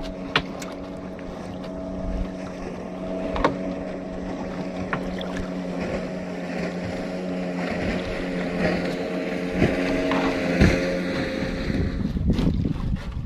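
A small boat's engine running steadily at low speed, with a few sharp knocks on the wooden boat. Near the end the engine hum fades and wind noise on the microphone grows.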